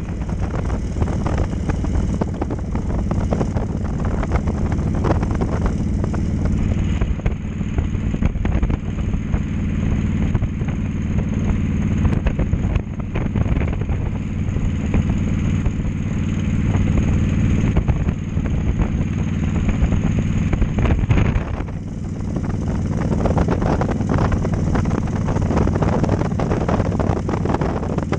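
Cruiser motorcycle's engine running steadily at cruising speed, heard from the rider's seat, with wind rush over the microphone.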